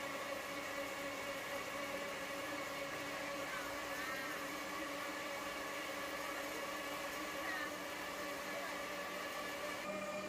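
A steady mechanical hum made of several steady tones, which shift slightly near the end.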